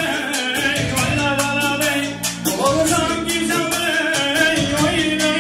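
A man sings into a microphone over loud amplified band music with a quick, steady drum beat.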